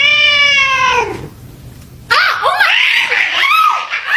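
A cat's long meow, rising and then falling in pitch, ending about a second in. After a short lull, a person's high-pitched shrieking laughter in quick bursts.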